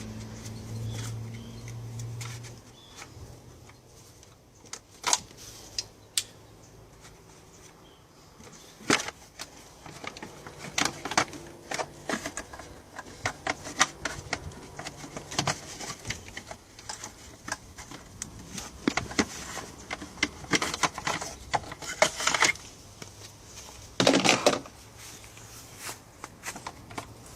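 Irregular clicks, clacks and knocks of tools and parts being handled on a BMW E90 engine while the ignition coils are got at, with a short cluster of louder knocks about 24 seconds in. A low hum fades out in the first two seconds.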